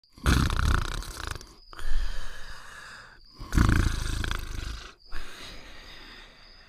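Cartoon snoring sound effect for a sleeping dog: two slow snore cycles, each a loud snore drawn in, then a softer breath out, about three seconds apart.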